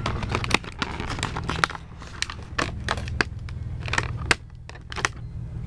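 Plastic toy packaging crinkling and crackling in irregular sharp snaps as a small figure is worked out of it by hand, over a steady low hum.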